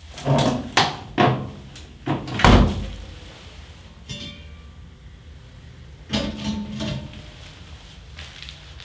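Metal doors and lids of an old coal-and-wood kitchen stove clanking as they are handled: a quick run of knocks in the first couple of seconds, a short high squeak about four seconds in, then another cluster of knocks about six seconds in.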